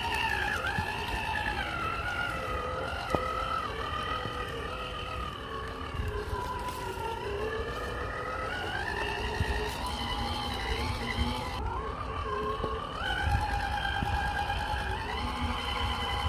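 Brushless motor and gear drivetrain of an Element RC Enduro scale crawler (Hobbywing 1800kv Fusion) whining as it drives, its pitch falling and rising several times with the throttle.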